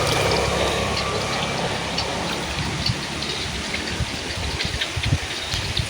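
Rain falling, with scattered drop ticks and splashing water in the canal.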